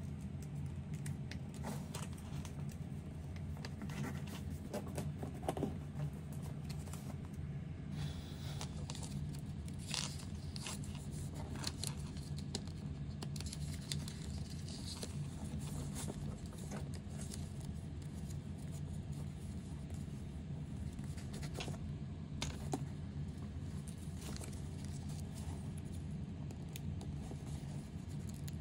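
Paper being folded and creased by hand: irregular short rustles, scrapes and crinkles over a steady low hum.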